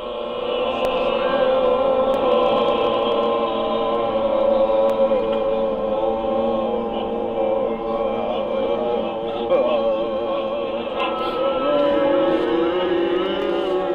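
A choir of voices singing a slow chant in long, held notes.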